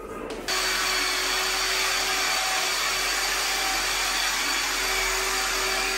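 Electric orbital sander with a round pad running steadily as it works the wall surface, starting abruptly about half a second in.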